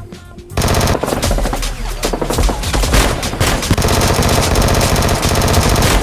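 Machine-gun fire sound effect: a rapid, dense stream of shots that breaks in suddenly about half a second in and keeps going, over background music.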